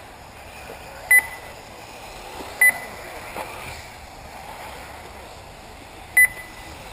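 Three short, sharp electronic beeps, about a second in, two and a half seconds in and six seconds in, from an RC race lap-timing system, each marking a car's lap as it crosses the timing loop.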